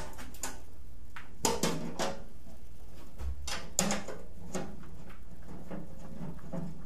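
A few sharp clicks and knocks of hands handling tools and parts on a combat-robot chassis on a workbench. They come in a cluster about one and a half to two seconds in and again near four seconds, over a steady low hum.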